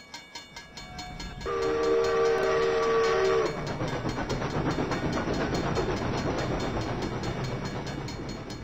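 Steam locomotive chuffing in a steady rhythm, its chime whistle sounding one held chord for about two seconds starting a second and a half in, then chuffing on and slowly fading away.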